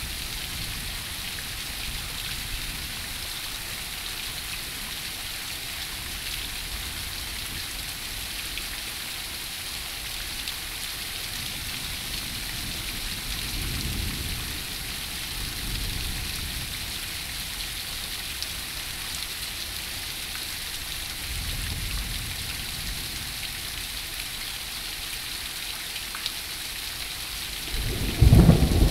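Heavy rain pouring steadily onto pavement, cars and trees, with soft low rumbles of thunder partway through and a sudden loud clap of thunder near the end.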